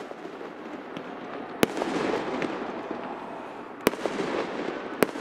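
Aerial firework shells bursting with three sharp bangs, about a second and a half in, near four seconds and again a second later, over a dense continuous noise.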